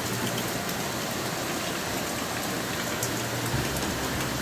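Rain falling, a steady hiss, with a low hum that grows stronger about three and a half seconds in.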